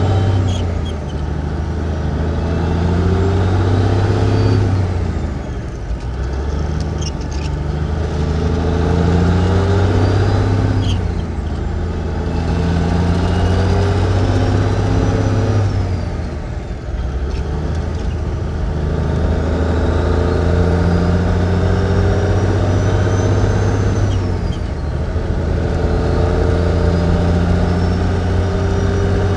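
1954 big-rig truck engine heard from inside the cab, pulling through the gears: its note climbs in each gear and drops back at each shift, about five times, with a thin whine climbing alongside it.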